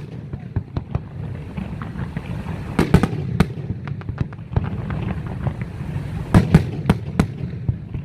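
Aerial fireworks shells bursting in a display: a run of sharp bangs and cracks, heaviest about three seconds in and again past six seconds, over a continuous low rumble.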